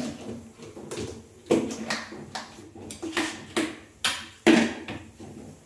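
A series of sharp knocks and clicks as the lid and jar of a mixer grinder are handled and fitted into place; the motor is not running.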